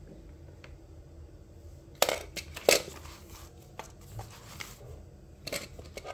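Paper pages of a handmade notebook being turned and handled: a few sharp rustles and snaps. The loudest comes about two and a half seconds in, and another cluster follows near the end.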